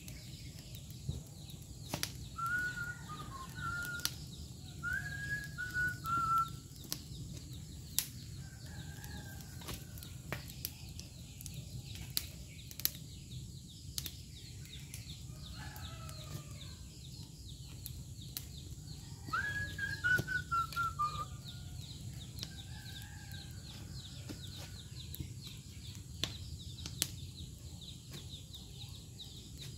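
Chickens clucking and a rooster crowing, with calls a few seconds in and again past the middle, over sharp crackles from green leaves and branches burning in a cinder-block rocket stove and a steady low hum from a small electric fan blowing air into it.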